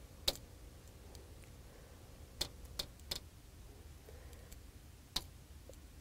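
About five short, sharp clicks or taps, irregularly spaced, over a faint low hum: the clicks of operating a presentation on a touchscreen display.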